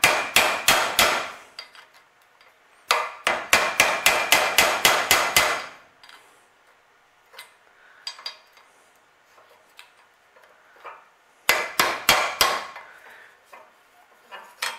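Claw hammer tapping a steel putty knife blade wedged into the split heat riser shaft of a cast-iron exhaust manifold, in three quick runs of metal-on-metal strikes about five a second, the longest run near three seconds, with light ticks between. The knife is being driven in to spread the slot and free a broken spring end seized in the shaft.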